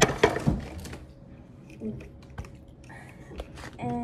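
Handling noise from a phone being moved about and bumped against clothing: a run of clicks, knocks and rubbing, loudest in the first second and then sparse. A brief steady pitched tone comes near the end.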